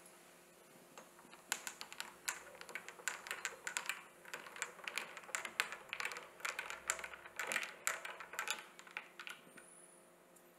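Spoon stirring a drink in a glass tumbler, clinking against the glass in quick, irregular ticks that start about a second and a half in and stop near the end.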